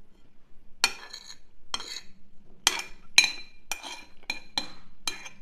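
Metal spoon clinking against a plate, about a dozen sharp strikes each with a brief ring. The spoon is scraping up the last grains of rice to clean the plate.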